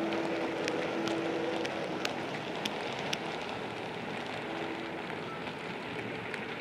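Model railway coal wagons rolling past on the track: a steady rolling noise with irregular sharp clicks from the wheels running over rail joints, fewer clicks near the end as the brake van passes.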